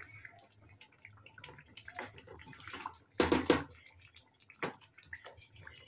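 Thick gravy simmering in an aluminium pot, with scattered bubbling pops while a wooden spatula moves the chicken pieces through it; a louder wet stir about three seconds in.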